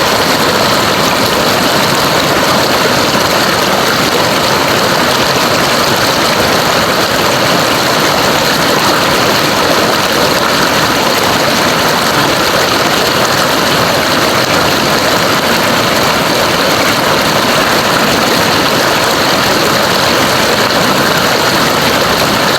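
River water rushing, a loud, steady, unbroken sound.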